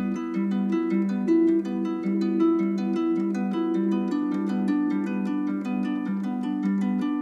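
Background music: a quick, steady pattern of plucked-string notes.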